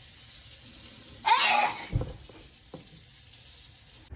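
A single person's sneeze about a second in, a short loud burst with a falling voiced 'choo', over a steady low hiss; a dull low thump follows just after.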